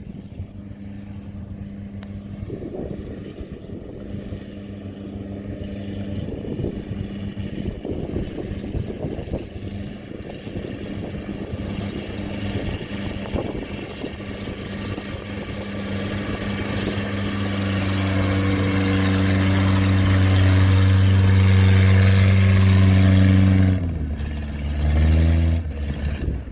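Kubota DC70 combine harvester's diesel engine running steadily and growing louder as it draws near. Near the end its pitch drops and the sound falls away.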